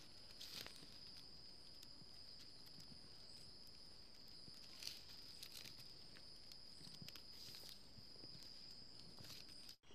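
Faint, sparse rustles and light clicks of flat plastic weaving strips being handled and threaded, over a steady, faint, high-pitched tone.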